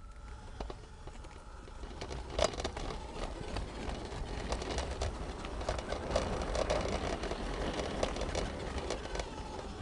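Garden-scale railway train rolling along the track with a low rumble and irregular clicks from the wheels on the rails, growing louder as it gathers speed.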